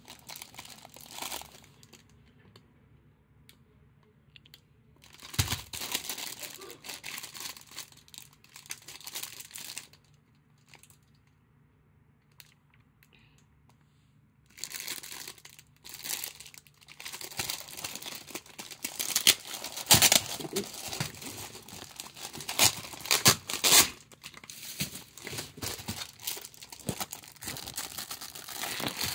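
Thin plastic bag crinkling as it is handled, in bursts: a stretch about five seconds in, a quiet gap, then almost continuous crinkling from about fifteen seconds on, loudest near the twenty-second mark.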